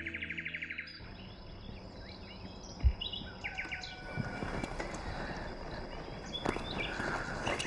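Outdoor ambience with birds chirping, after music and a rapid trill stop about a second in. A single low thump near three seconds.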